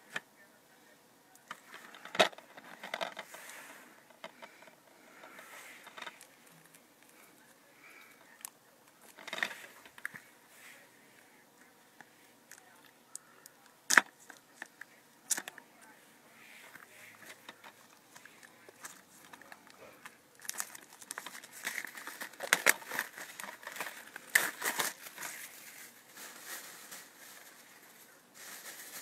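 Plastic shrink wrap being torn and peeled off a DVD case, crinkling and crackling, with scattered sharp snaps. One snap about halfway through is the loudest, and a denser stretch of crinkling comes in the last third.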